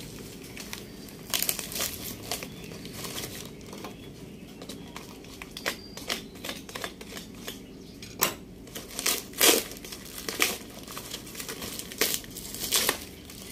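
Cardboard box and wrapping being pulled open and torn off an exhaust pipe by hand: irregular crinkling and tearing, with the loudest crackles in the second half.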